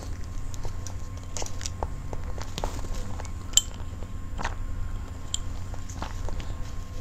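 Close-miked eating of soft cream cake: small wet mouth clicks and chewing sounds, over a steady low hum. A single sharp clink about three and a half seconds in.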